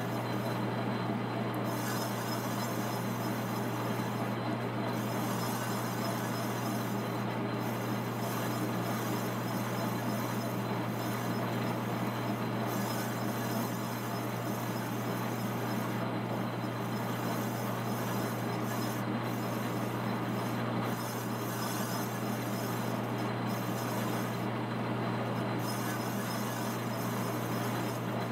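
Monarch metal lathe running steadily with a low hum while a boring tool cuts and blends a contoured bore in a turbocharger compressor cover; the hiss of the cut drops out briefly now and then.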